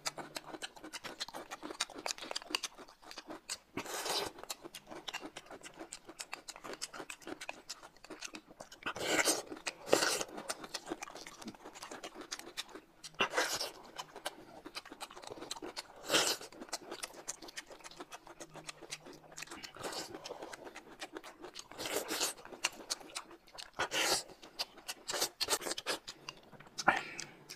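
Close-miked eating sounds: chewing and mouth smacking, with louder spoonful slurps of corn soup every few seconds.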